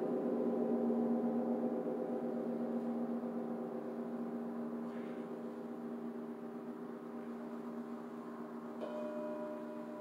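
Hanging gongs ringing out after being struck with a mallet, a dense wash of overlapping tones that slowly dies away. Near the end a new, higher ringing tone is struck in over it.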